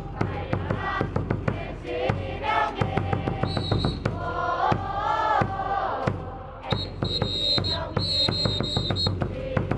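Baseball stadium crowd chanting and singing a batter's cheer song over music from the stadium speakers, with a fast, even beat of clapping throughout. A high steady tone sounds briefly twice, the longer stretch in the second half.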